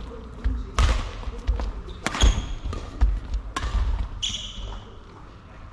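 Badminton rally: sharp racket strikes on the shuttlecock about every second and a half, with footsteps thudding on the sprung wooden floor and brief shoe squeaks.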